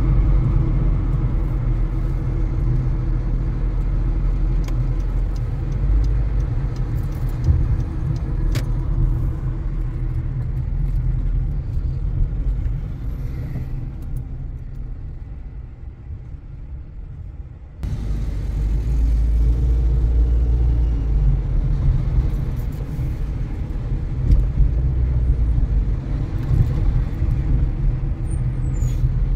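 Car driving on the road: a steady low rumble of tyres and engine. It eases off gradually past the middle, then comes back suddenly at full strength.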